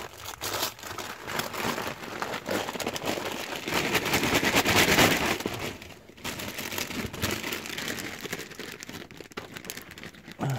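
Christmas wrapping paper crinkling and tearing as a present is unwrapped by hand, a dense run of rustles that is loudest about four to five seconds in.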